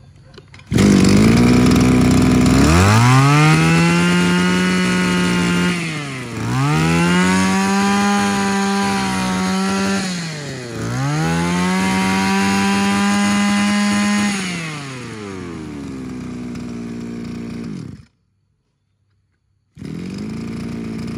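A Ryobi brush cutter's 23cc two-stroke Zenoah Komatsu engine catches about a second in and idles briefly. It is then revved up to full throttle three times, dropping back between revs, before settling to idle. The sound cuts off suddenly, and a few seconds later the engine is heard idling again.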